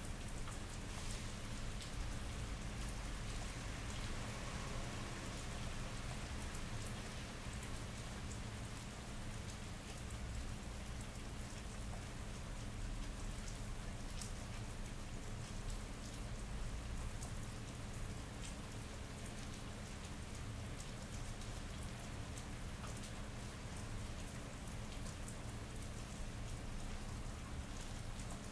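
Steady rain falling on wet pavement, with individual drops ticking close by and a low steady hum underneath.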